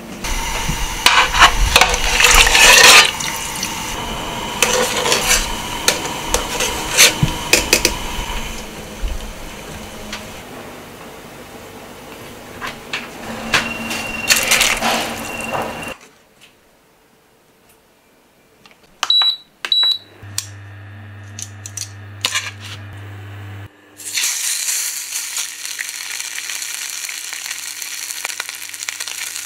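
Water sloshing and metal pot clatter with sharp knocks as raw chicken is handled and lowered into a large aluminium pot of water. After a quiet gap come two short high electronic beeps and a low steady hum, then, for the last few seconds, a pork roll sizzling as it sears in an aluminium pan.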